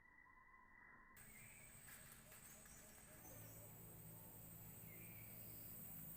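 Near silence: faint outdoor ambience with a few short, faint high bird chirps. A faint muffled tone cuts off about a second in.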